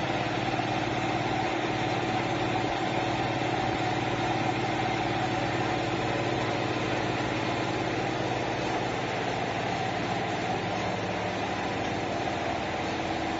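Paper edge-protector (angle board) production line running: a steady machine hum with several held tones.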